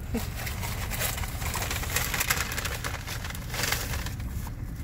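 A paper fast-food bag and a foil sandwich wrapper rustling and crinkling in several short bursts as a hand rummages in the bag and draws the foil-wrapped sandwich out, over a steady low hum.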